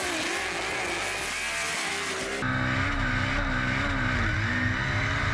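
Audi S2 drag car's single-turbo 3-litre engine running. About two and a half seconds in it suddenly gets louder and fuller, holding a slightly wavering pitch.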